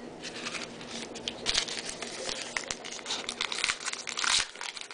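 Foil wrapper of a trading-card pack crinkling and tearing as it is ripped open by hand, in irregular bursts, loudest about four seconds in.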